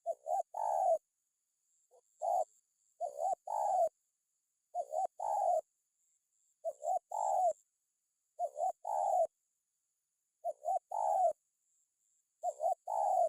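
Spotted dove (tekukur) cooing its song. About seven phrases, each two or three short coos ending on a longer one, repeat roughly every two seconds.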